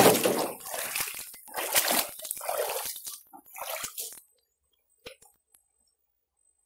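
Shallow river water splashing and sloshing in uneven bursts about once a second, stopping after about four seconds; a few faint clicks follow.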